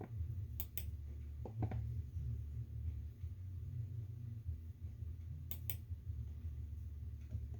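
A low steady hum with a few sharp clicks that come in quick pairs: one pair about a second in, a softer pair shortly after, and another pair a little past halfway.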